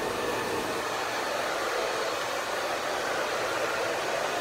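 Handheld hair dryer running steadily, a constant rush of blown air.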